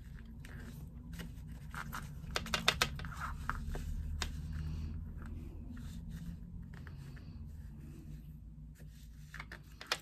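Hands working a needle and thread through a stitched bag panel, pulling the thread ends through to the back: scratchy rubbing of thread and material, with a quick run of sharp clicks a little over two seconds in.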